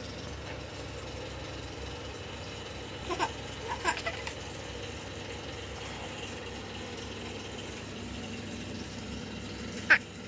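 A toddler's short little vocal sounds about three to four seconds in, then one loud, brief squeal about ten seconds in, over a steady low background hum.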